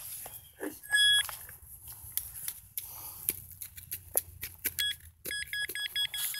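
Handheld Nokta pinpointer beeping: one steady beep about a second in, then rapid, evenly spaced beeping from about five seconds in as it picks up a buried metal target. Grass and loose soil rustle as they are handled.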